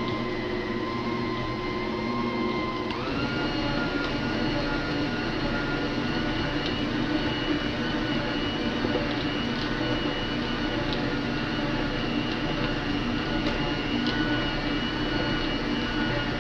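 Arno Planetária Essencial stand mixer running, its beaters whipping a heavy, chilled ice cream base. The motor's steady whine steps up in pitch about three seconds in as the speed is turned up a notch.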